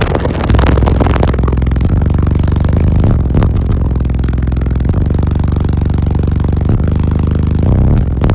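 Very loud low bass from a car audio system's six Sundown ZV5 18-inch subwoofers, playing deep held bass notes that step up in level about half a second in, with rattling over the top.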